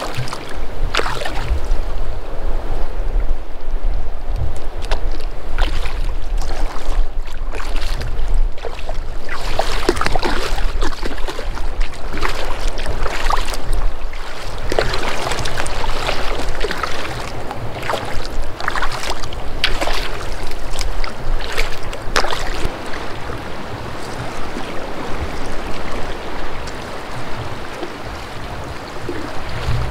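Sea kayak paddling: the paddle blades splash into the water stroke after stroke and small choppy waves splash around the kayak. Gusty wind buffets the microphone throughout, heaviest in the first eight seconds or so.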